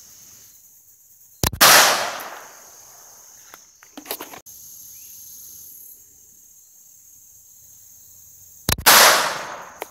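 Two pistol shots about seven seconds apart, each a sharp crack trailing off in a short echo.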